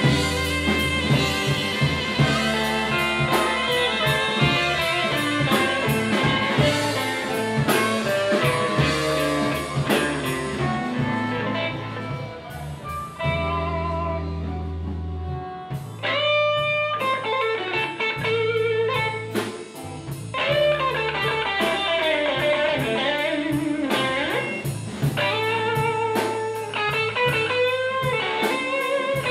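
Live electric blues band playing an instrumental section of a slow minor-key blues: an electric guitar leads with bent notes over bass and drums.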